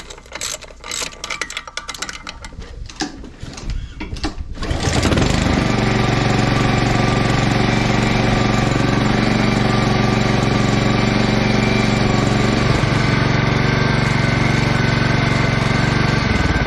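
A ratchet clicks rapidly as the valve cover bolts are snugged down on a Honda GCV190 engine. About five seconds in, the Honda HRX217 mower's GCV190 single-cylinder engine is heard running loud and steady, with its valve guide freshly repaired.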